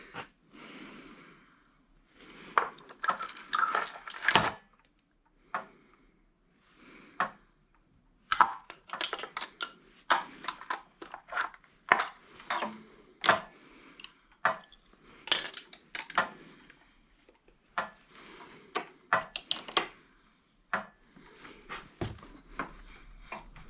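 Steel sockets and hand tools clinking and clattering as someone rummages through a socket set, hunting for a 16 mm socket. The clinks come irregularly, some single, some in quick clusters.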